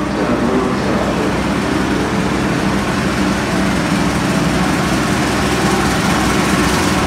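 Diesel-electric locomotive engine running as the train approaches, a steady low drone.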